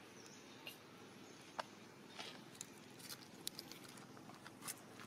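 Faint, irregular crisp clicks and crackles of a baby long-tailed macaque grabbing leaves and twigs and nibbling at them on a branch. The sharpest click comes about one and a half seconds in.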